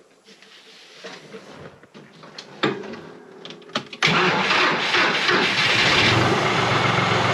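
John Deere 5055 tractor's diesel engine starting: a couple of sharp clicks, then about four seconds in the engine catches and runs loudly and steadily.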